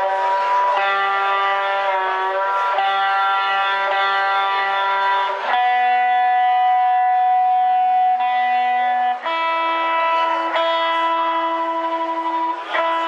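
Electric guitar being tuned through an amplifier: single notes ring out and are held for a few seconds each, one after another, with slight bends in pitch as a tuning peg is turned.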